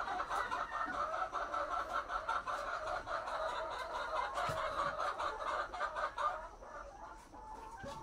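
A flock of brown hens clucking together in a dense, steady chorus, which thins out and quietens about six seconds in.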